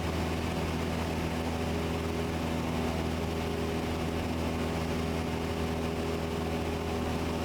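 Cessna 172's piston engine and propeller running at a steady cruise power, a constant drone with fixed low tones, heard through the headset intercom feed in the cockpit.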